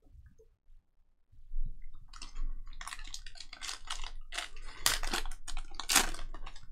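Foil wrapper of a Panini Donruss basketball card pack crinkling and tearing as it is ripped open by hand. The rapid crackle starts about a second and a half in, with the loudest rips around five and six seconds.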